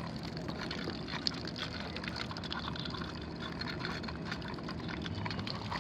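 Water running and splashing from an outdoor hose faucet, a steady rush with a faint low hum underneath.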